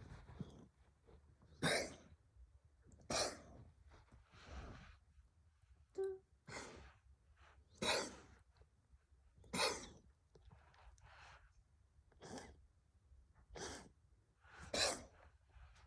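An elderly Siamese cat in a coughing fit: a run of about ten short hacking coughs, roughly one every second and a half. The cough has lingered after a tooth extraction and a course of antibiotics, and the owner wonders whether it is asthma or a hairball.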